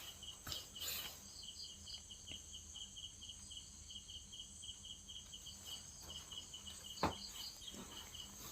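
A cricket chirping steadily and rapidly, about three to four short high chirps a second, with a sharp knock about seven seconds in.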